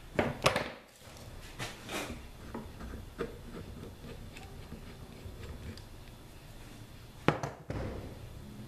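Small bar clamps being released and pulled off a rifle's upper receiver, with sharp clicks and knocks as the clamps and tools are handled and set down on a table. Several clicks come in the first two seconds and a single sharp click about seven seconds in.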